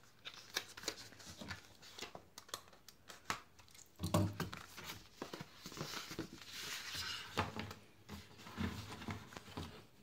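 Paper and cardboard being handled: a paper envelope and cardboard packaging rustling and crinkling as they are opened, with light taps and clicks. There is a dull thump about four seconds in.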